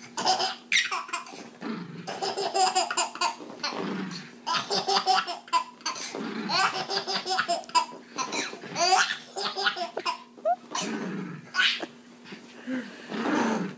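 A baby laughing hard in repeated bursts of belly laughter.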